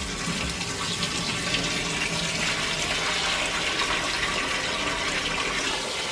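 Kitchen tap running steadily into a steel bowl of rice in a stainless-steel sink, with a hand swishing the grains as the rice is rinsed.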